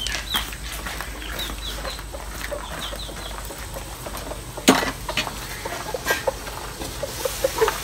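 Chickens clucking, with many short high chirps in the first half. A sharp knock comes a little past halfway, followed by a few lighter knocks.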